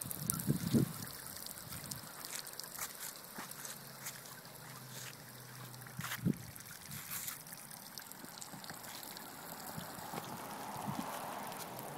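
Splash-pad water jets spraying and spattering onto wet concrete: a steady hissing wash scattered with light taps. Short low bumps near the start and a brief thump about six seconds in.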